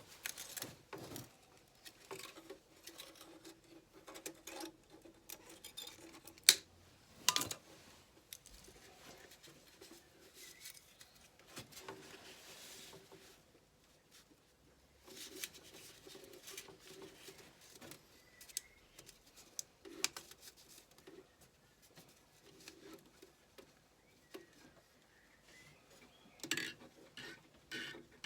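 Faint, scattered clicks, taps and small metallic clinks of objects being handled, with two sharper knocks about six and a half and seven and a half seconds in, and a quick run of clicks near the end.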